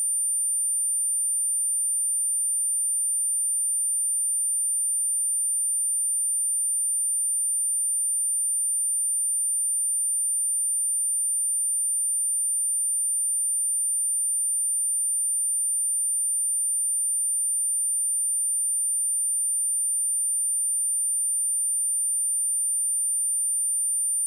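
A steady, high-pitched pure sine-wave test tone at 9175 Hz, held at one pitch and level throughout.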